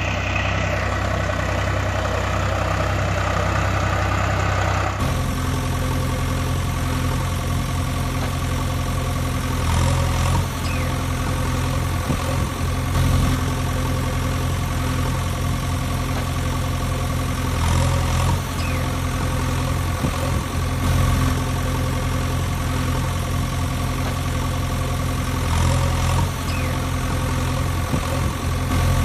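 Engine idling steadily: a sound effect, not a sound made by the hand-pushed plastic toy loader. The sound changes abruptly about five seconds in and swells briefly every few seconds.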